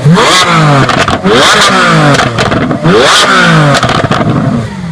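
Lamborghini Veneno Roadster's 6.5-litre V12 revved three times in quick succession, each rev climbing sharply and dropping back with exhaust crackles before it settles to idle near the end.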